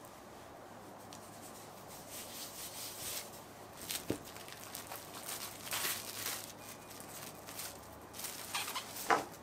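Soft rubbing and scraping strokes of hands and utensils working food in the kitchen, with a small knock about four seconds in and a louder scrape near the end.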